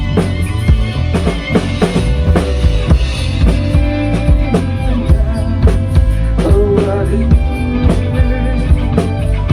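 Rock music: a drum kit playing a steady beat of kick and snare, over bass and sustained guitar notes.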